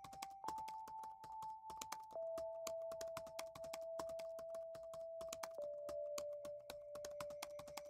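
Rapid, irregular keyboard typing clicks, a typing sound effect, over a soft steady tone that shifts pitch three times.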